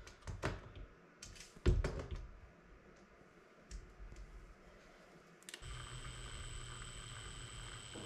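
Light clicks and knocks of tools being handled on a plastic case, then, about five and a half seconds in, a cordless drill starts running slowly with a steady low hum and thin whine as it begins a hole in the plastic case.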